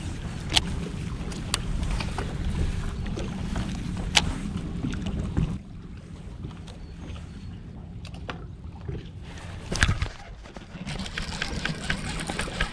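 Steady low hum of a boat's electric trolling motor, which cuts off about five and a half seconds in. A few sharp clicks come from handling the baitcasting rod and reel.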